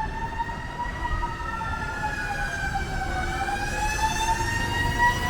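Fire truck siren wailing slowly: the pitch climbs, sinks to a low point about three seconds in, then rises again. A low rumble runs underneath.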